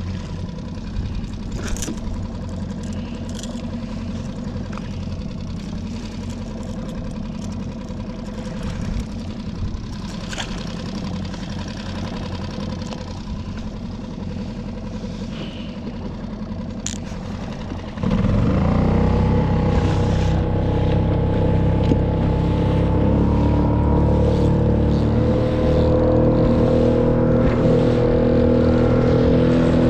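Solo skiff's outboard motor idling at low throttle with a few sharp clicks, then throttled up about 18 seconds in, its pitch climbing and stepping up a couple more times as the skiff gets under way to troll.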